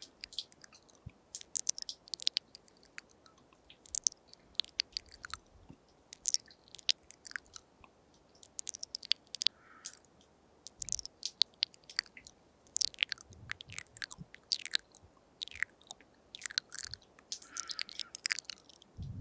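Wet mouth sounds close to a binaural microphone: quick clusters of tongue and lip clicks and smacks, coming in short bursts every second or so.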